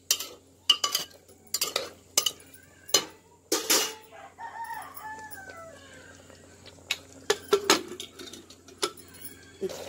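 Steel ladle knocking and scraping against the inside of an aluminium pressure cooker as curry is stirred, in sharp irregular clanks, with more clanks near the end as the lid goes on. Partway through, a rooster crows in the background, one long falling call.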